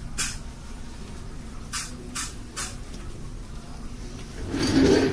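Binaural recording of a dental hygienist cleaning the back teeth with hand instruments: four short, hissy scraping strokes in the first three seconds, then a longer, louder rustling sound near the end.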